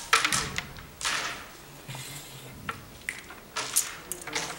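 A carrom shot: a sharp clack as the striker hits the coins, then knocks as striker and coins rebound off the board's wooden frame about a second in. Lighter scattered clicks follow as pieces are handled on the board.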